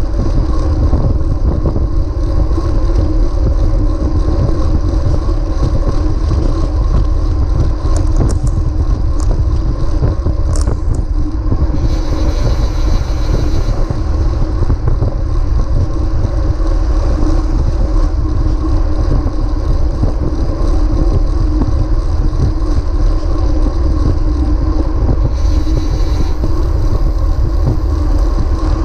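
Steady, loud rumble of wind and road noise picked up by a bicycle-mounted action camera on a moving road bike, with a few steady humming tones underneath. Brief hissy swells come twice, about twelve seconds in and again near the end.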